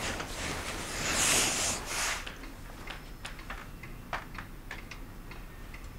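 Soft rustling of bedclothes and clothing for the first two seconds or so, swelling just after a second in, then a few faint scattered clicks.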